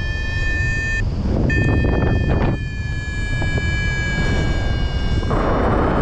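A paragliding variometer sounds a continuous electronic tone, the kind a vario gives as a sink alarm. The tone breaks off briefly about a second in, then carries on with its pitch sliding slowly lower. Wind buffets the microphone throughout, with a stronger gust near the end.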